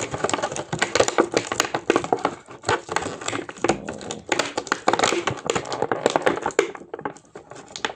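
Plastic toy packaging and tape being pulled and handled, a dense run of clicks and crackles that dies down near the end.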